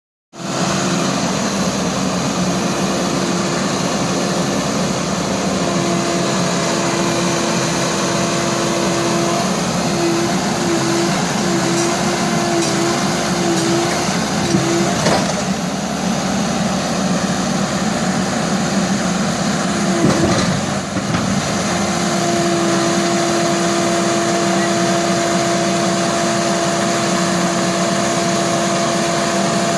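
Excavator's diesel engine running steadily under load, with a constant tone over the engine noise. Partway through, the tone breaks into short pulses a little faster than once a second, and about two-thirds through it drops out briefly with a knock.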